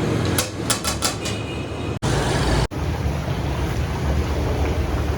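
Steady low mechanical rumble, like a running motor or machinery, with a quick run of sharp clicks about half a second in. It cuts out abruptly twice, briefly, around two seconds in.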